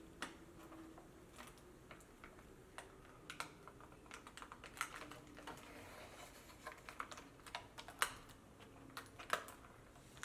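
Faint, irregular clicks and crackles of adhesive tape being picked and peeled off a laptop's screen frame, with small taps of fingers on the plastic.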